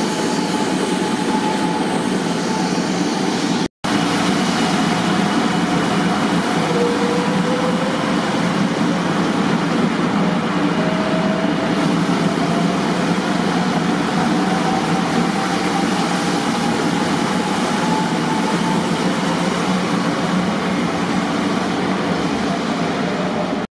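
500 Series Shinkansen (500 TYPE EVA) electric train moving slowly along the track by the platform: steady rolling and running noise with a faint whine that slowly rises in pitch. A brief break in the sound about four seconds in.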